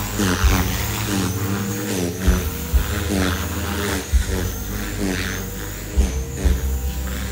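Gaui X3 electric RC helicopter flying, its motor and rotor whine rising and falling in pitch as the throttle changes. Repeated low thumps run under it.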